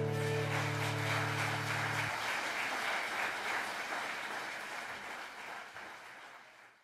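The last strummed chord on an acoustic guitar rings on and stops about two seconds in, as the audience breaks into applause. The applause continues and fades away toward the end.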